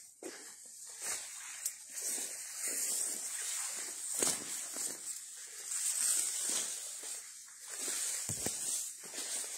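Footsteps and the rustle of leaves and palm fronds brushing past while walking through thick vegetation, irregular and uneven, over a steady high hiss.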